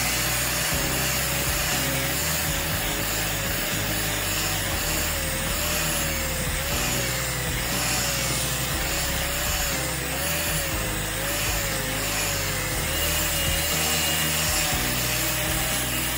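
A power tool working wood, with a steady rough noise and a wavering tone, over background music.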